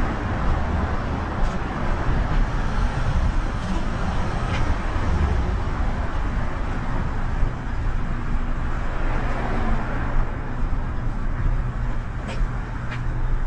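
Street traffic noise: cars passing in a steady wash, with a few brief high-pitched sounds within it.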